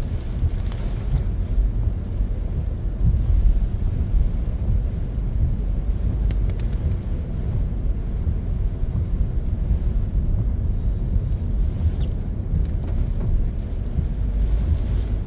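Car cabin noise while driving in rain: a steady low rumble of road and engine with an even hiss over it, and a few faint ticks.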